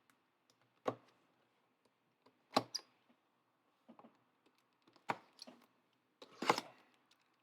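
Handling noises: four short, sharp clicks and knocks, a second or two apart, as small objects are picked up and set down on a table.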